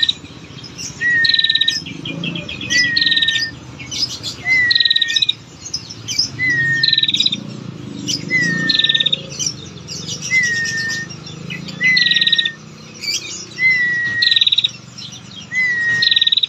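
Female prinia (prenjak) giving its ticking call over and over, about every one and a half seconds: a short whistled note that rises slightly and holds, then a fast, high ticking trill. A low background rumble runs underneath.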